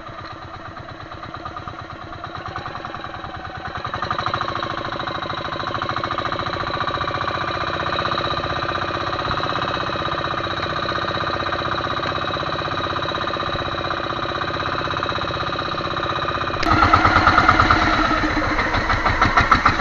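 Outrigger fishing boat's engine running steadily, getting louder about four seconds in, then abruptly louder near the end.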